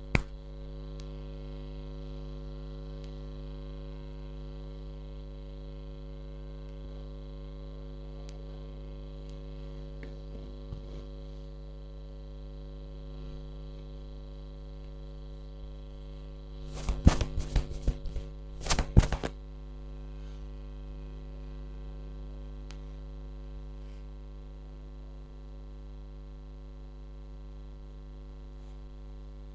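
Steady electrical mains hum. About seventeen seconds in, a quick run of sharp smacks or cracks lasts about two seconds.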